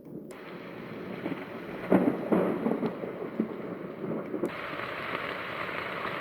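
Roffie white noise machine playing a recorded thunderstorm through its small speaker: a hiss of rain with low rumbles of thunder. About four and a half seconds in it switches abruptly to a brighter, steady hiss, the next sound in its list.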